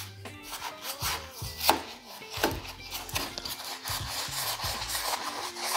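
Paintbrush scrubbing the wet sunroof guide channel: bristles rubbing and scraping in irregular strokes, a few of them sharper.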